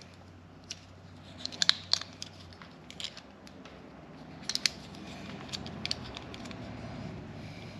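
Scattered sharp snips and clicks of hand tools working on small wires, in short clusters with pauses between.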